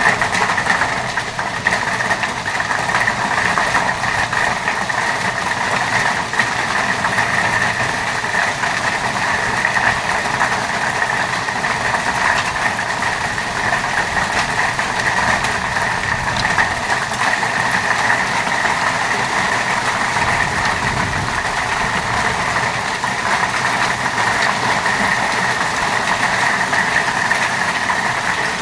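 Heavy rain with hail falling: a steady, dense patter of drops and small hard hits.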